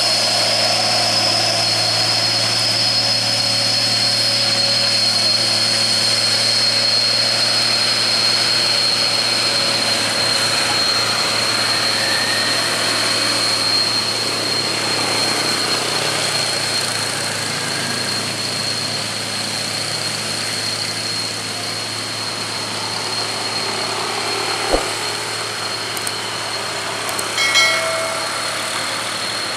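Heavy diesel tanker truck's engine labouring slowly up a steep grade: a low, steady drone under a sustained high whine, easing off gradually as the truck pulls away. A short horn beep sounds near the end.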